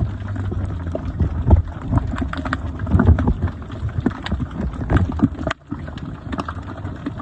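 Underwater sound picked up by a submerged camera: a steady low hum with frequent clicks and crackles, briefly dropping out a little over five seconds in.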